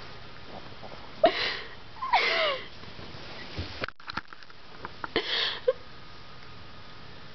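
A sleeping dog giving short, breathy barks in its sleep: three of them, two close together about a second apart and a third after a pause of about three seconds, with a few small clicks in between.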